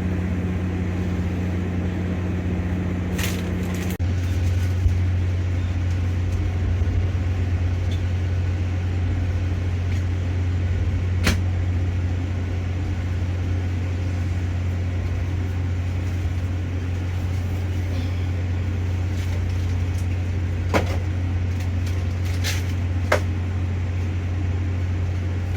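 Steady low engine drone heard from inside a vehicle cab, stepping up slightly about four seconds in, with a few sharp clicks or knocks scattered through.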